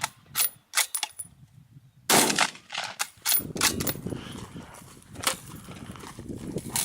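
Bolt-action rifle: a few sharp metallic clicks, then a single loud shot about two seconds in, followed by more scattered clicks and knocks.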